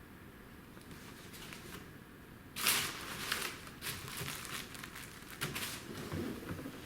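Plastic packaging crinkling and rustling as an item is unwrapped by hand, starting about two and a half seconds in with an irregular run of crackles.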